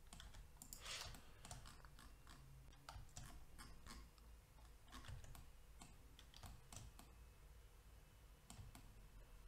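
Faint, irregular clicks of a computer keyboard and mouse in use.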